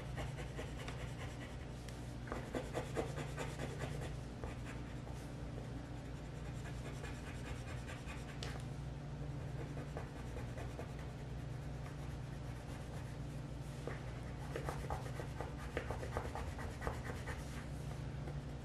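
Coloured pencil scratching back and forth on paper in quick shading strokes, busiest about two seconds in and again near the end, over a steady low hum.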